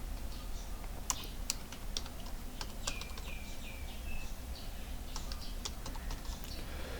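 Typing on a computer keyboard: irregular key clicks, with a brief high chirp about three seconds in.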